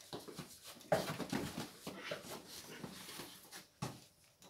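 People scuffling at close quarters: clothes and bedding rustling, with a few sharper knocks about a second in and again near the end.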